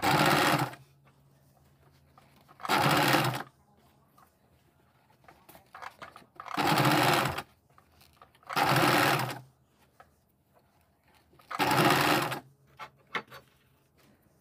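Electric sewing machine stitching down folded fabric pleats in five short runs of about a second each, stopping between runs while the fabric is guided by hand. A few light clicks come near the end.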